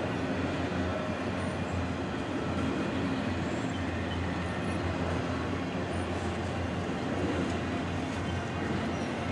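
Freight train rolling by: a steady low rumble of wheels on rail that holds even throughout.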